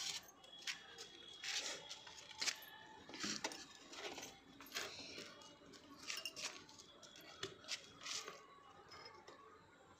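Quiet, scattered clicks and rustles of small objects being handled, about eight light knocks spread across the stretch.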